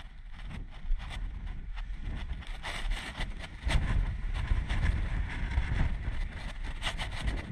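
Wind buffeting the camera microphone, growing louder about halfway through, with frequent scuffs and scrapes of boots and hands on rough rock as a climber scrambles up a boulder ridge.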